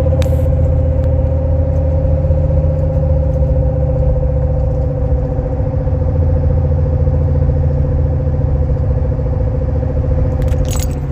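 Engine running steadily at idle with a fast clicking, "da-da-da-da", that the owner says sounds like pistons; he suspects worn bearings, a bad fuel pump, old spark plugs, the cam belt or oil pressure.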